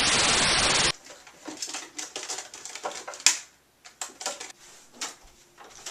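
A loud burst of static hiss that cuts off suddenly about a second in, followed by faint, irregular clicks and brief scraping sounds.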